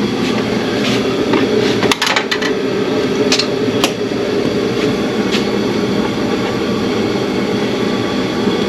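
A few sharp clicks and knocks of hands and tools on engine parts, over a steady low hum.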